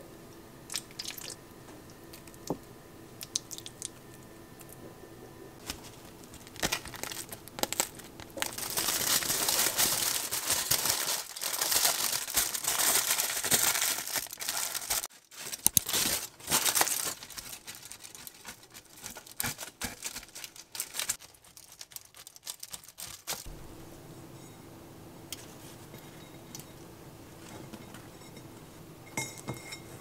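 Kitchen food-preparation handling sounds: crinkling and crunching, loudest as a dense rustle from about a quarter of the way in to just past the middle, then scattered clicks and knocks that stop about three-quarters through.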